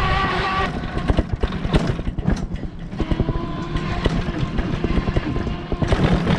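Auto-rickshaw riding along a rough road: the body and canopy rattle and clatter over low road rumble. A steady whine at the start breaks off under a second in, and a steady hum comes back about three seconds in.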